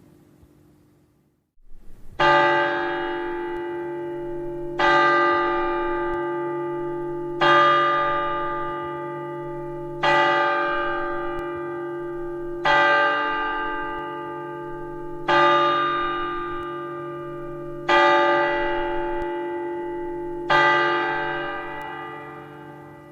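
A single large cathedral bell tolling: eight strokes of the same note, about two and a half seconds apart, each ringing on and fading under the next. A short silence comes before the first stroke.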